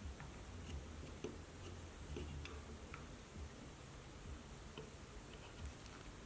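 Faint, irregular small clicks and taps of tools and parts being handled during work on a laptop's internals, over a low steady hum.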